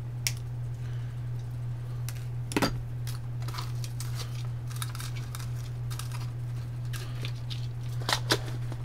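Scattered light clicks and taps of hand tools and components being handled on a cutting mat: side cutters set down and a strip of taped resistors picked through. A steady low hum runs underneath.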